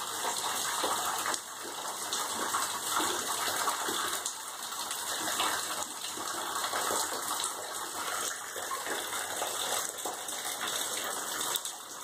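Water leaking through a ceiling and pouring down in streams, splashing steadily onto the floor, which the residents take for the upstairs shower draining through.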